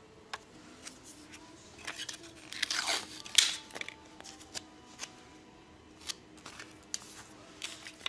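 Adhesive tape and an IV dressing being peeled, handled and pressed down over a cannula on the forearm: scattered small clicks and rustles, with a louder crackle of tape coming away about three seconds in.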